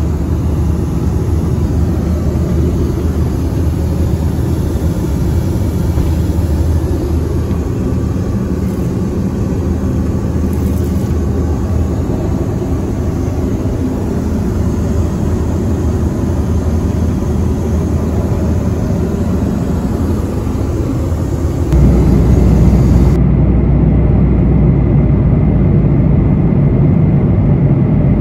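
Boeing 737-900ER cabin noise in cruise: a steady low rumble of engines and airflow. About three-quarters of the way through it steps up louder and deeper.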